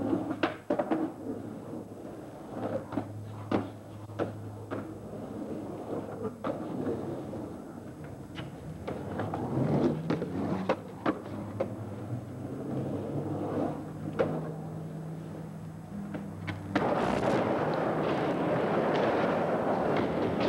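Skateboard riding a drained concrete pool: wheels rolling over the concrete, with repeated sharp clacks and knocks from the board and trucks. About three-quarters of the way through, the sound jumps abruptly to a louder, steady rushing noise.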